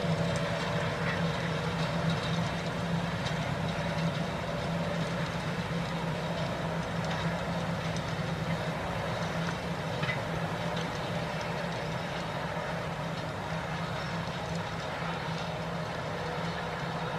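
Claas tractor's diesel engine running steadily under load while pulling a seed drill through dry soil, a constant low drone with noise from the working implement, easing slightly toward the end.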